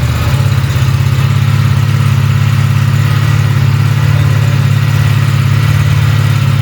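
Aprilia RS457's 457 cc parallel-twin engine idling steadily through its stock exhaust just after a cold start, a loud, even low hum.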